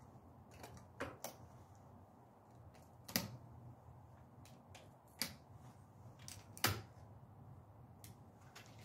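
A few sharp metallic clicks and knocks, about five in all, the loudest near three and seven seconds in. These are the sounds of a break-action double-barrel shotgun being handled and loaded with slug shells; no shot is fired.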